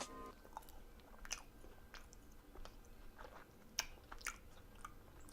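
Faint chewing of a jelly-filled donut, with scattered small wet mouth clicks spread unevenly through it.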